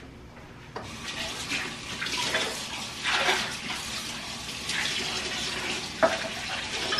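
Kitchen sink tap turned on about a second in, water running and splashing into the sink, with a single knock near the end.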